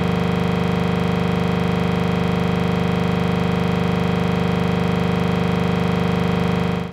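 A loud, unchanging electronic buzzing drone made of many even overtones, held at one pitch without any variation, that cuts off abruptly into dead silence at the end.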